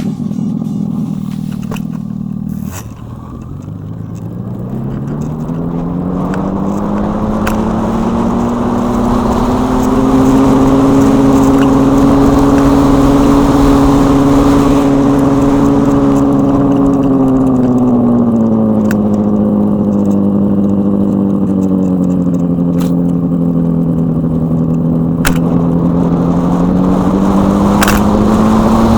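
Simulated engine sound from the EUC World AVAS, played through a Kingsong 16X electric unicycle's speakers, its pitch following the wheel's speed. It climbs steadily over the first several seconds, holds high, dips about two-thirds of the way through, then rises again.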